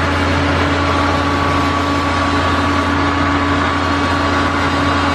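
1931 Ford Model A's four-cylinder engine running at a steady speed, heard from aboard the moving car, with road and wind noise and a steady whine over the engine drone.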